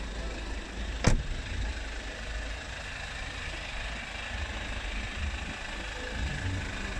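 A car door is shut once about a second in, a single sharp thud. Under it a car engine idles steadily with a low hum.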